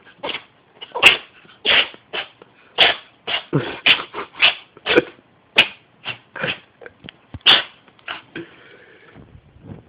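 A cat sneezing over and over in a long fit: short, sharp sneezes coming about two a second, some much louder than others, thinning out near the end.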